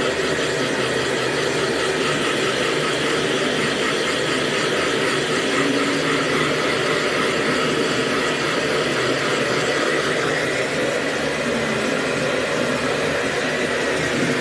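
Hair dryer running steadily, a constant blowing with a motor hum.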